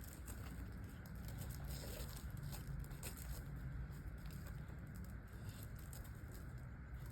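Scattered light crunches and taps on icy, crusted snow, over a steady low wind rumble on the microphone.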